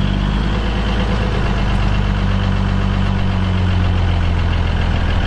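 5-ton army truck's engine running steadily, heard from inside the cab.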